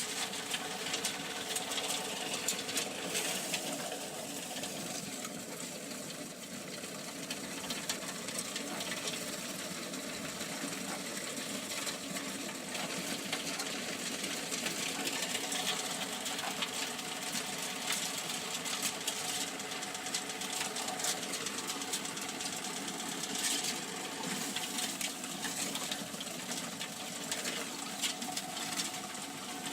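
A small machine running steadily, with a fast, even ticking over a steady hum.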